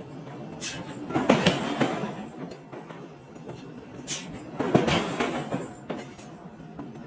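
Forging machine working in a repeating cycle, about every three and a half seconds: a brief high hiss, then a louder clatter of metal clanks. The cycle runs twice.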